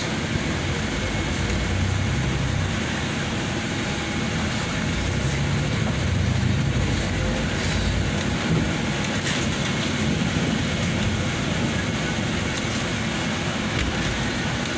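A moving city bus heard from inside the passenger cabin: the engine runs with a steady low rumble under road and tyre noise, with faint rattles.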